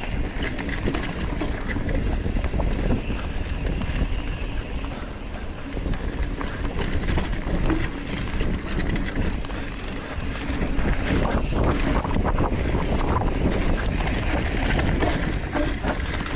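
Wind rushing over the microphone of a camera riding on a hardtail mountain bike, under the rolling of the tyres on dirt and rock, with many small knocks and rattles from the bike over rough trail.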